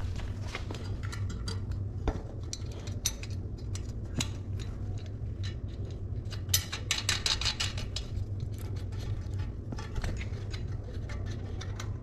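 Irregular metallic clicks, taps and clinks of tools and bike parts being handled, thickest about two-thirds of the way through, over a steady low hum.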